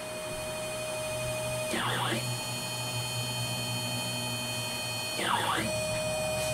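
Homemade CNC router's stepper motors whining at steady pitches as the gantry traverses. Twice the pitch swoops down and back up as the axis slows, reverses and speeds up again, with a Harbor Freight router spindle running underneath.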